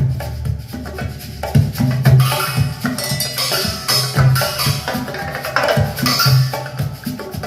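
Instrumental passage of a pop song: a bass line with light, woodblock-like percussion and no singing.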